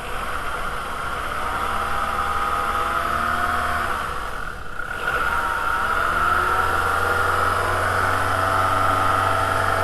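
VW 2.0L ABA four-cylinder engine idling steadily on a freshly replaced timing belt, with no squeal from the belt or tensioner. The sound dips briefly about halfway through.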